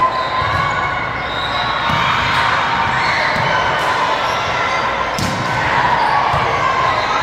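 Volleyball thumping on a gym floor and off players' hands, several dull hits, the sharpest about five seconds in, over a steady background of crowd voices.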